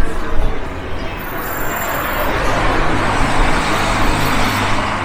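City street traffic: a motor vehicle passes close by, its engine hum and tyre noise swelling to a peak about three seconds in.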